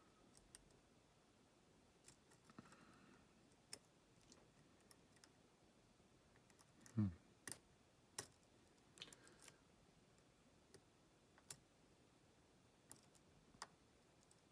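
Faint, irregular clicks and ticks of a lock pick working the pins of a pin-tumbler lock under tension, with a brief low voice-like sound about seven seconds in.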